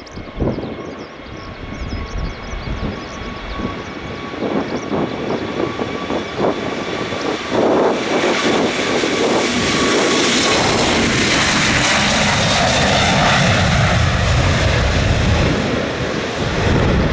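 Airbus A321neo jet engines at takeoff. A steady whine comes first, then from about eight seconds a loud rushing jet noise builds and holds as the airliner goes by. Gusts of strong wind buffet the microphone.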